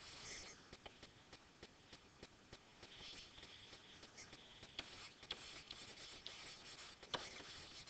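Faint scratching and light tapping of a stylus writing by hand, with scattered small clicks as the strokes begin.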